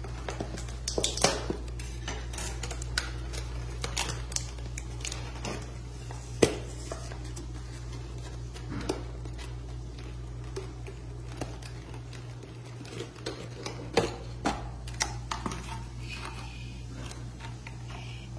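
Clear plastic clamshell cupcake container being handled, with irregular clicks and crackles of the thin plastic and taps of a table knife against it, over a steady low hum.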